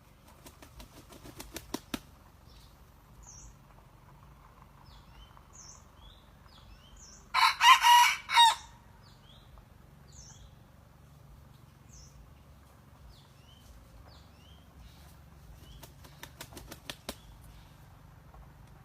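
Rooster of the junglefowl decoy kind flapping its wings in a quickening run, then crowing once in a short broken crow about seven seconds in. Another run of wing-flaps comes near the end, and small birds chirp faintly throughout.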